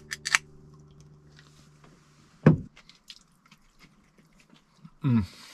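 A person eating with chopsticks: a few sharp clicks and mouth noises, then two short hums that fall in pitch, about 2.5 and 5 seconds in, as a sign of enjoying the food.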